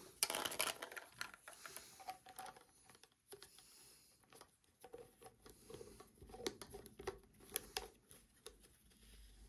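White PVC tubular P-trap parts being handled and joined: a run of faint, irregular plastic clicks and scrapes as the slip nut is turned onto the J-bend's threads to squeeze the rubber washer into the bevel. The clicks are a little louder in the first second.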